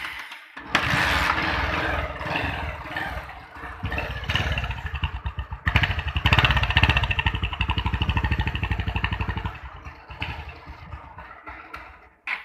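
Bajaj Pulsar 150 motorcycle's single-cylinder four-stroke engine starting, running and being revved. It starts abruptly about half a second in, is revved louder for a few seconds in the middle, then settles lower and cuts off near the end.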